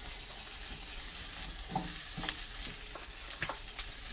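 Frozen gyoza sizzling as they hit a very hot, dry frying pan, a steady high hiss with a few sharp clicks and taps as dumplings go in.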